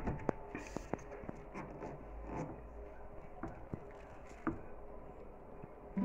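Powdered laundry detergent trickling from a plastic measuring scoop into a washing machine's detergent drawer: a faint patter with scattered light clicks of plastic.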